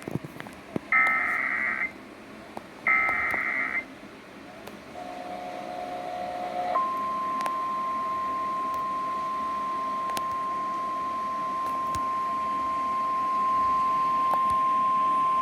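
Emergency Alert System SAME header: two raspy bursts of digital data tones, each about a second long, then a brief lower tone. Then the single steady 1050 Hz NOAA Weather Radio warning alarm tone sounds for about nine seconds, heralding a severe thunderstorm warning.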